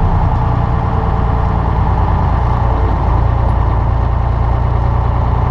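Semi truck's diesel engine running steadily as the truck rolls slowly along.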